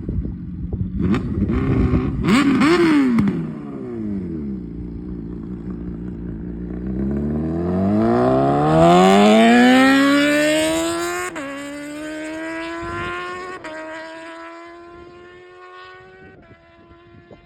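Suzuki GSX-R motorcycle with a Racefit exhaust revving in quick blips, with pops and crackles as the revs drop, then settling to a lower note. It then pulls away, the pitch climbing with two sudden drops as it shifts up, and fades away.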